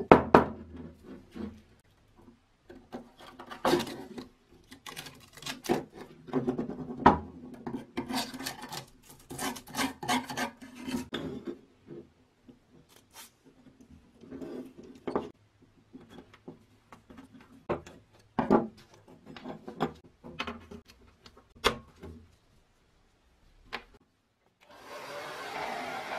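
Screwdriver scraping and prying flaky rust and crusted debris off a rusted steel part of a bench grinder: irregular scrapes, rasps, clicks and knocks, with flakes dropping. Near the end a steady rushing noise starts.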